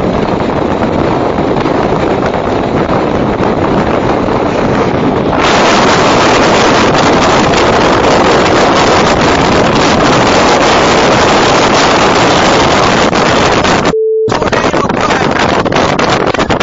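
Loud steady rush of wind on the microphone, mixed with the road noise of a moving car. It grows louder and hissier about five seconds in. Near the end the sound cuts out for a moment and a short beep is heard.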